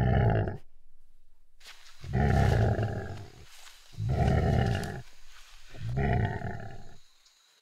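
Tiger roaring four times, each deep roar lasting about a second with short pauses between them.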